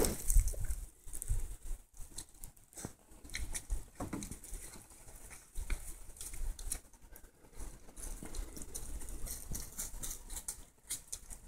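Wild boar rooting with its snout in wet mud and fallen leaves: irregular scuffling, pattering and small clicks.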